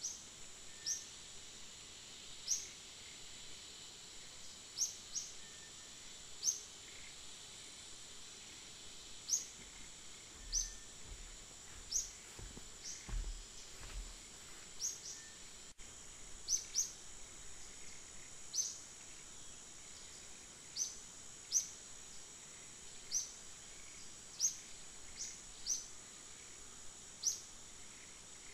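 Tropical woodland ambience: a steady high insect drone with short, sharp high chirps repeating irregularly every second or two. A few low rumbles come about halfway through.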